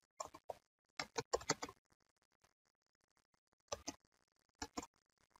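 Typing on a computer keyboard: faint separate keystroke clicks in short bursts, with a pause of about two seconds in the middle.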